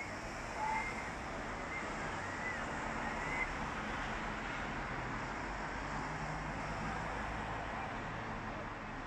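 Distant crowd noise from a large gathering at the water's edge, a steady hubbub, with a few short high-pitched cries in the first few seconds.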